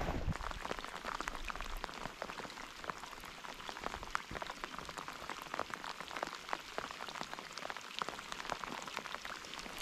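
Steady rain falling on the lake surface: a continuous hiss scattered with many sharp ticks of drops striking close by.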